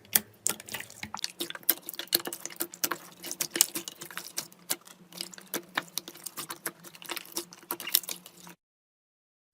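Slime being squeezed and pressed by hand, giving a dense run of sticky, wet clicks and pops. The sound cuts off abruptly about a second before the end.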